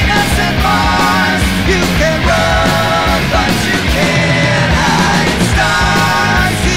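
Background song with a singing voice holding long notes over a steady drum beat.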